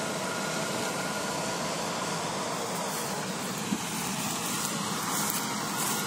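Combine harvester engine running steadily: an even, unchanging mechanical drone.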